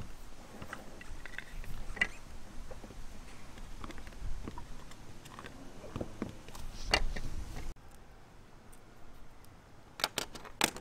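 Hands working on the van's sheet-metal roof: rubbing and wiping with scattered light clicks, then a quick cluster of sharp clicks near the end as the plastic cable entry box is handled.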